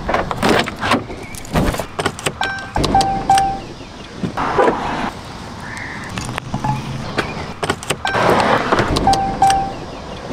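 Clicks and jangle of a Jeep key fob and keys being handled, a car door opening, and a few short electronic beeps from the car. No engine starts; the car's battery may be dead.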